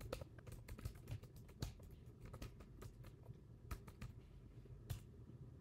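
Faint, irregular typing on a Chromebook laptop keyboard: quick key clicks at a few a second, with a few louder taps.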